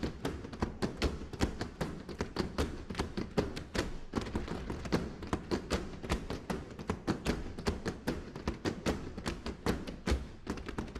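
Push brooms struck on a stage floor together with stamping feet, in a fast percussion rhythm of sharp knocks and thumps, several strikes a second.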